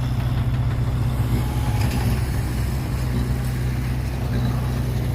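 Heavy diesel engine of earthmoving machinery running steadily at a low drone, with a brief knock about two seconds in.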